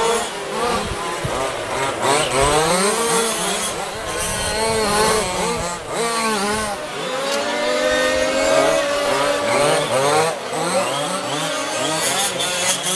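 Small two-stroke petrol engines of 1:5 scale RC rally cars, several at once, revving up and down as the cars accelerate and brake through a coned course.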